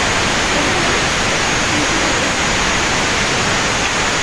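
Steam hissing steadily out of a pressure cooker's lid as it vents.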